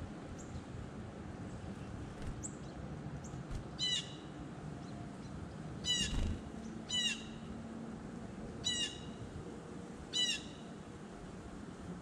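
A chickadee giving five short, high calls at uneven intervals of one to two seconds, with a soft flutter of wings about halfway through as a bird lands at the seed.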